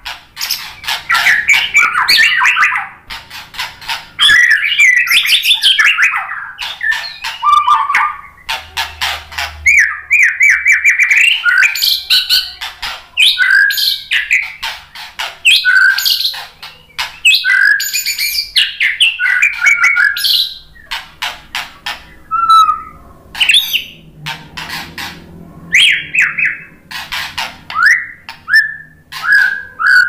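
White-rumped shama singing a long, varied song of rich whistled phrases, quick trills and sharp clicking notes, one phrase after another with short pauses between.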